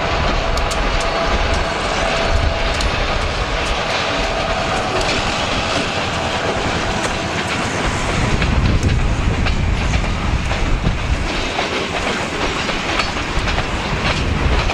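Trailing EMD diesel locomotive passing close by, then a long freight train of loaded cars rolling past, its wheels clicking and clacking over the rail joints in a steady rumble.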